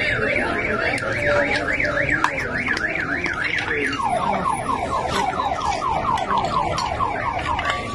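Car alarm sounding: a loud electronic tone warbling up and down about three times a second, which about four seconds in switches to a rapid run of falling chirps, then near the end to steady held tones.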